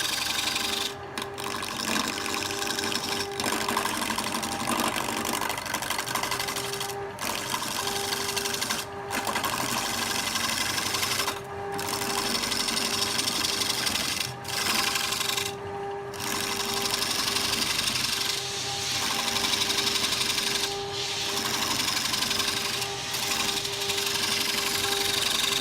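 Wood lathe running, a steady motor hum with the hiss of a cutting tool working wood, broken by short gaps every few seconds.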